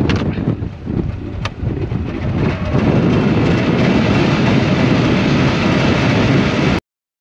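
Strong wind buffeting the microphone in a dense rumbling noise that grows louder about three seconds in and then cuts off abruptly.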